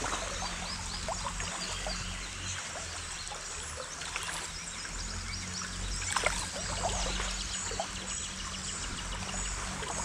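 Creek water running and trickling steadily, with a brief louder splashy noise about six seconds in.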